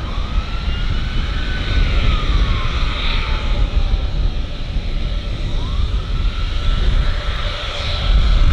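Gulfstream G600's twin Pratt & Whitney PW815GA turbofans running at taxi power: a high turbine whine whose pitch slides up and down, over a low rumble. It grows louder near the end as the jet comes closer.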